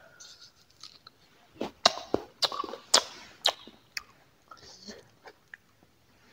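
Close-up crunching and chewing of a crisp bite of apple: a run of sharp crunches between about one and a half and three and a half seconds in, then softer chewing.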